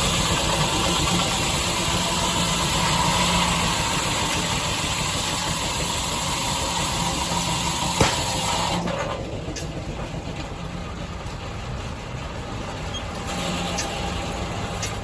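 Steam traction engine driving a sawmill, running steadily with a loud hiss. A single sharp knock comes about eight seconds in, and soon after the high hiss drops away, leaving a lower, quieter running sound.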